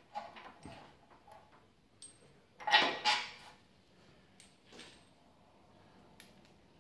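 Metal clinks and knocks of bolts just removed from the fan's bearing mount being handled, with two louder clanks close together about three seconds in and a few light ticks after.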